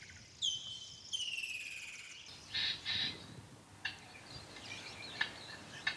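Wild birds calling in the bush: two clear whistled notes in the first two seconds, then two short calls and scattered faint chirps.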